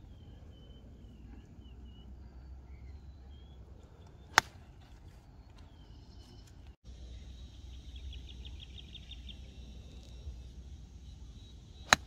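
Two sharp clicks of golf clubs striking balls, about seven and a half seconds apart: an iron shot from the fairway, then a second player's shot near the end.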